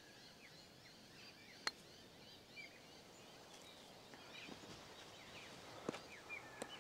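Golf club striking the ball on a short chip shot: a single crisp click about a second and a half in, with two fainter ticks near the end. Faint bird chirping runs under it.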